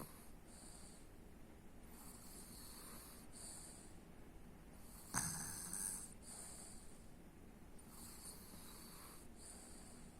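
Faint, regular snoring of a sleeper, a breath in and out about every three seconds, with one sudden louder snort about five seconds in.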